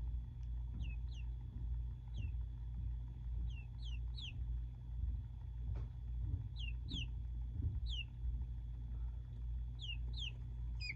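Baby chicks peeping: short, high, falling peeps, mostly in pairs, coming every second or two over a low steady hum.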